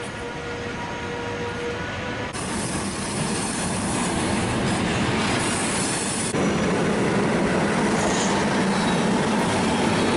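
Freight train of loaded car-transporter wagons rolling past on the rails, a continuous clatter and running noise of wheels on track. A high steady whine sits over it for the first two seconds, and the noise steps up in loudness about two and six seconds in.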